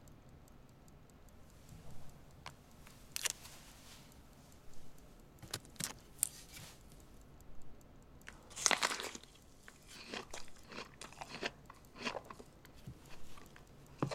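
A person biting into and chewing a crisp apple: scattered crunches, the loudest bite about nine seconds in, followed by smaller chewing crunches.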